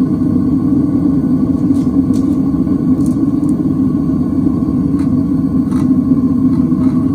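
Propane burner of a metal-melting furnace running with a steady rumble, with a few faint clinks as aluminum scrap is fed into the crucible.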